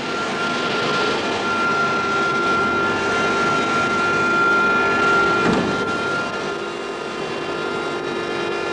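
Jet aircraft engine running: a steady rushing noise with a high whine that drops away about halfway through.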